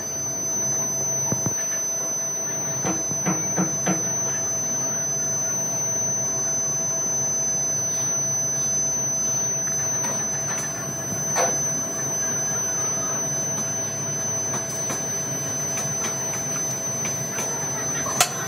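Steady drone of running foundry machinery with a thin, high whine, broken by a few sharp clinks as an iron rod is worked in the pit of molten metal: three close together a few seconds in, one midway and a louder one near the end.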